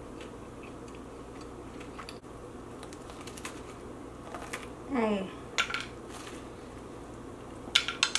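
Eating sounds: small clicks and taps of utensils or dishes, with a short sound falling in pitch about five seconds in and a quick cluster of sharp clicks near the end.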